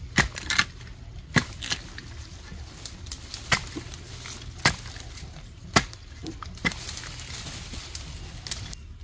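A long digging pole jabbed repeatedly into root-bound earth, giving about ten sharp, irregular chopping strikes roughly a second apart.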